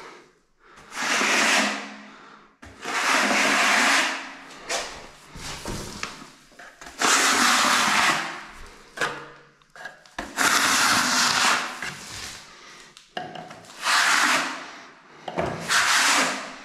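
Finishing plaster being worked over a wall in long scraping strokes: about six strokes, each a second or two long, with short pauses between.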